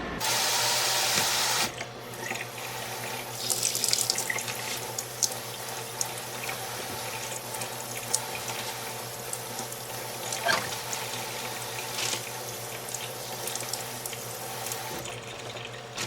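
Kitchen tap running into a sink, at full flow for about the first second and a half and then lower, with splashing and small knocks as rhubarb stalks are rinsed under it.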